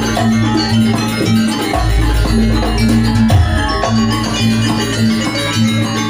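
Gamelan music for a janger dance: struck metal-keyed instruments playing repeated melodic figures with percussion over a low bass, continuous and loud. The low bass drops out for the first couple of seconds and again near the end.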